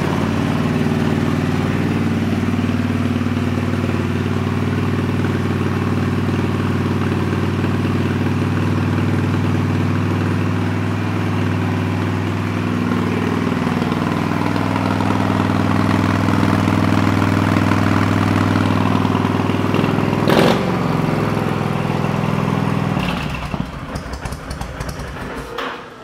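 2007 Honda VTX1300C's carbureted V-twin idling steadily through aftermarket exhaust pipes on choke, its idle speed shifting a little midway. A sharp knock comes about twenty seconds in. A few seconds later the engine falters and dies: the choke was turned off too soon.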